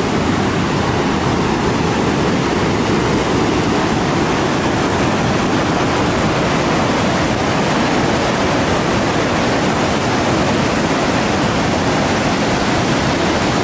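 Huron River in flood rushing through its rapids: a loud, steady roar of whitewater.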